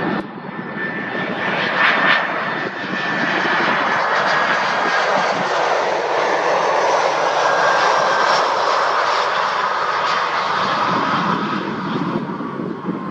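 Jet engines of an Airbus A320-214, its CFM56-5B turbofans, as the airliner flies past on final approach to land: loud, dense engine noise with a high whine that slowly drops in pitch as it passes.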